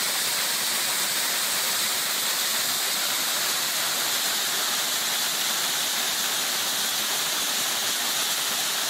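Waterfall pouring into a pool: a steady, unbroken rush of water with a strong hiss.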